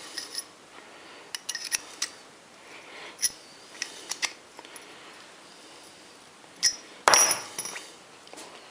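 Small metal pieces being handled, clinking and tapping against each other and a hard surface: a string of sharp ringing clicks, with a louder rattling cluster about seven seconds in.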